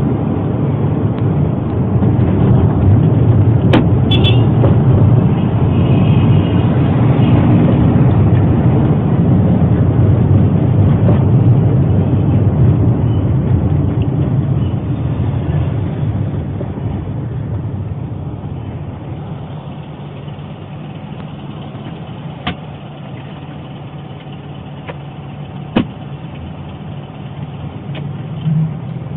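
Taxi engine and road noise heard from inside the cabin while driving, turning noticeably quieter after about two-thirds of the way through. A few sharp clicks are heard, one near the start and two near the end.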